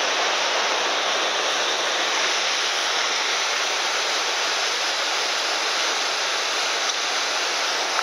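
Steady rushing of the Gullfoss waterfall heard up close: an unbroken hiss of falling water and spray.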